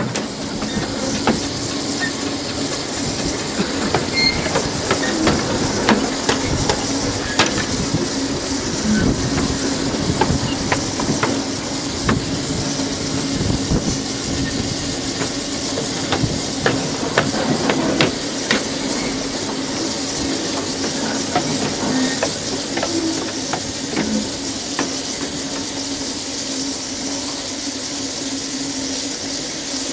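Exmoor-built 15-inch gauge 2-6-2T tank steam locomotive hissing steam steadily, with a low hum and scattered metallic clicks and knocks, most of them in the first two-thirds.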